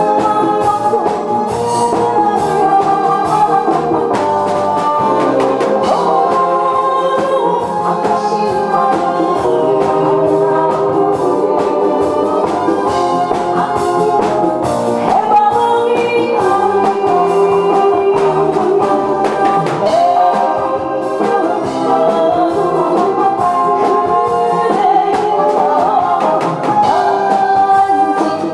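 A woman singing into a microphone over instrumental accompaniment with a steady beat.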